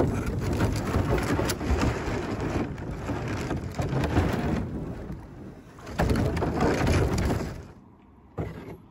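Rumbling, crackling handling noise picked up by a camera fixed to a plastic canoe's bow as the boat is moved about on land, with scattered knocks, dropping away sharply near the end.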